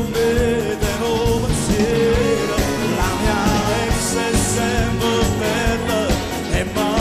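Live pop band playing over a steady beat, with female backing singers carrying the melody.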